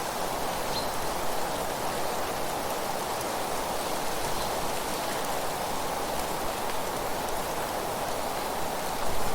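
Steady rushing noise of an outdoor nature soundscape, even throughout, with no distinct events standing out.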